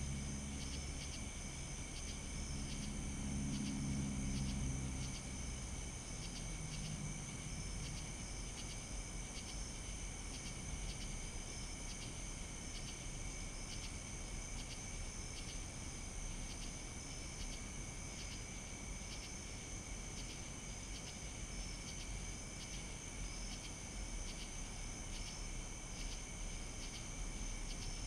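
Steady chorus of night insects chirping, high-pitched with a regular pulse. A low, distant droning hum fades away over the first few seconds.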